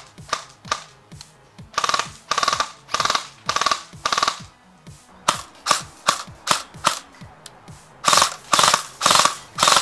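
Echo1 Troy airsoft electric rifle powered by an 11.1-volt LiPo, firing short full-auto bursts that sound as a rapid mechanical chatter of gearbox and piston. In the middle comes a run of single shots about 0.4 s apart, and near the end more bursts.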